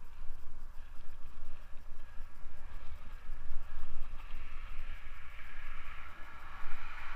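Wind buffeting a helmet camera's microphone while riding a mountain bike, over the steady hiss of its tyres rolling on asphalt; the hiss grows louder over the last few seconds.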